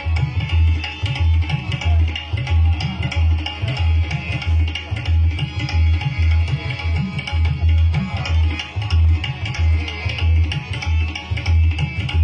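Tabla playing a steady rhythm, its deep bass-drum strokes repeating about three to four times a second, over the sustained reedy tones of a harmonium, in ghazal accompaniment.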